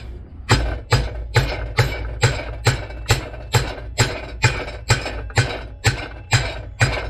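Hammer beating on a stuck Mazda Miata power steering rack's pinion housing clamped in a bench vise: a steady run of about sixteen metal blows, two a second, each with a dull thud and a short ring, to force the seized pinion and its seals apart.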